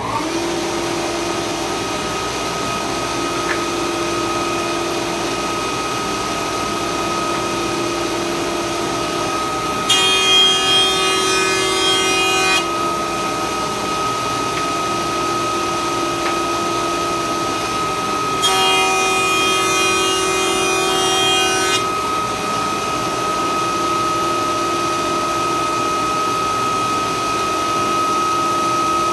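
Stationary woodworking machine running steadily, with wood fed through it twice: two louder stretches of cutting, each about three seconds, about ten seconds in and again about halfway through.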